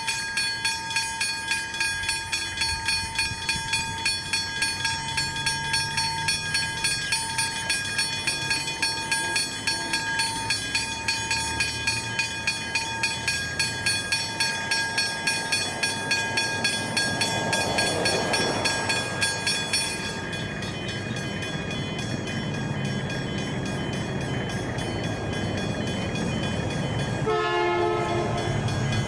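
Level crossing warning bells ringing in rapid, even strokes, about three a second. About two-thirds through the ringing turns softer and steadier while a low rumble builds, with a short horn blast near the end.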